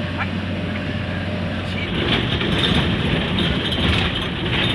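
Bus engine running and the cabin rattling as it drives over a rough dirt road, heard from inside; the noise grows louder and rougher about two seconds in.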